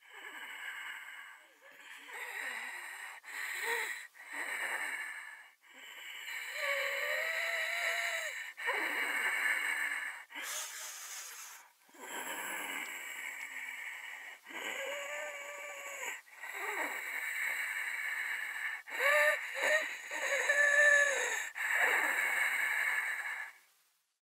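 A woman's laboured, wheezing breathing on supplemental oxygen: breath after breath, many with a wavering whistle, the breathing of damaged lungs. It cuts off suddenly near the end.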